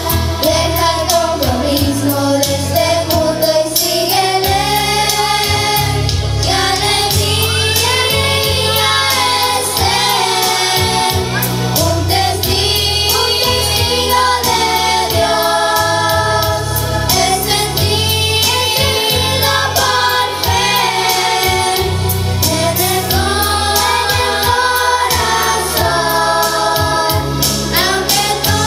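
Youth choir singing a Spanish-language Christian song together into handheld microphones, over an accompaniment with a steady bass line.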